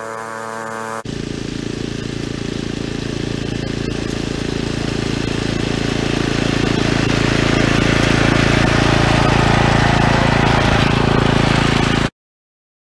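Craftsman-branded McLane gas-powered reel mower running steadily while cutting grass, getting louder as it comes closer. It cuts off abruptly just before the end.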